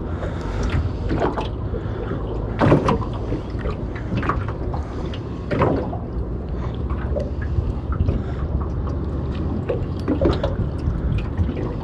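Water slapping and splashing against the hull of a small boat at irregular moments, over a steady low rumble.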